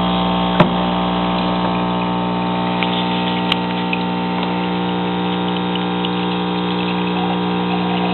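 Aquaponics system pumps running: a steady electric hum with water moving through the plumbing. Two brief clicks cut through it, one just under a second in and one about three and a half seconds in.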